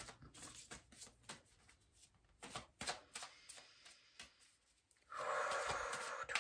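A deck of oracle cards being handled: scattered light taps and slides of the cards, then a steady run of shuffling from about five seconds in, the loudest part.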